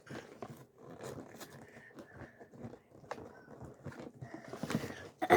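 Small plastic Lego pieces clicking and tapping as they are handled and fitted together, with packaging rustling and a louder rustle near the end.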